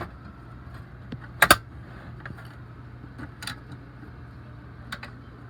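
Clicks and knocks of a 290-watt Dell power supply being fitted into a PC case: one sharp, loud click about a second and a half in, then a few fainter ones, over a steady low hum.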